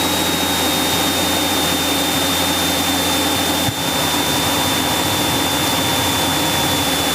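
Cabin noise of a Cessna 172SP in flight: the four-cylinder Lycoming engine and propeller droning steadily and evenly, with a thin, steady high whine over it.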